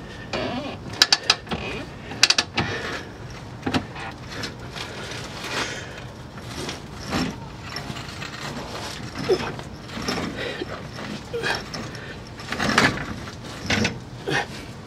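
Transmission jack being raised under a car, with irregular metal clicks and clanks as the transmission is worked into position. The sharpest cluster of clicks comes about one to two seconds in.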